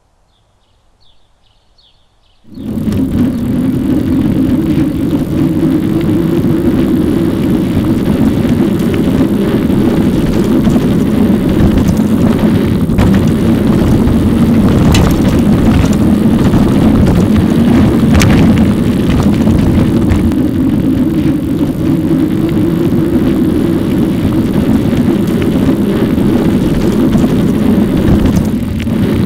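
Steady loud rushing noise from a bicycle-mounted camera on a moving e-bike, wind and road noise, starting abruptly after a few seconds of near silence with faint soft chimes.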